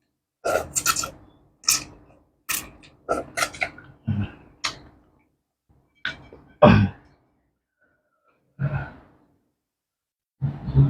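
A person eating soup close to the microphone: a run of short slurps and mouth smacks, then a few louder, fuller mouth sounds with pauses between them.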